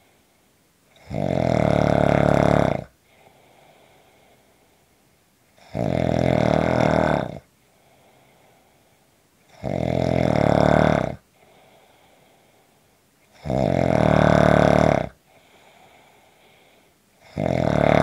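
A person snoring rhythmically: five rough snores, one about every four seconds, each lasting about a second and a half, with faint breathing between them.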